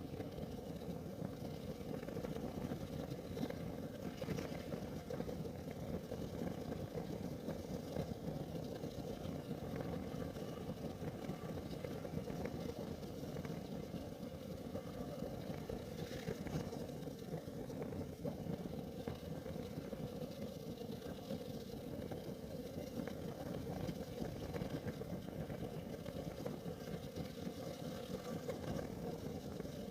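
Kerosene heater burning: a steady low rush of flame with a few faint ticks.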